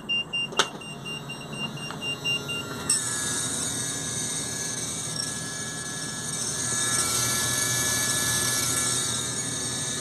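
GM Workhorse chassis' hydraulic parking brake assist pump motor. It starts about three seconds in and runs on with a steady electric whine, after a click and some rapid beeping. The pump keeps running with the parking brake set, the fault on this RV, which the parts supplier puts down to the park brake pressure switch that usually fails.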